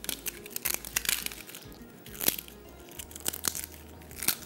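Crisp fried papri wafers crunching and cracking as they are handled and broken: a string of sharp, irregular snaps.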